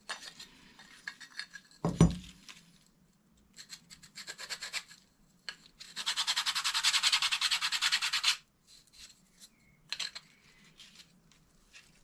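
Workshop handling noises with a knock about two seconds in and scattered small clicks. Midway there are about two seconds of fast back-and-forth scrubbing or rasping, several strokes a second, the loudest sound here.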